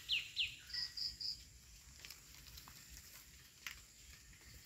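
A bird calling: the last of a quick run of falling whistled notes, then three short high notes about a second in. After that there is only quiet forest background with a few faint clicks.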